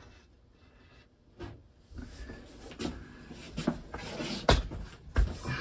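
A series of separate knocks and clunks, like objects being handled and set down, about five in all; the loudest comes about four and a half seconds in.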